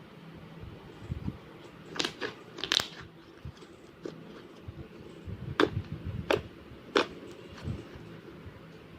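Homemade slime being squeezed and poked, giving sharp clicking pops in two short clusters.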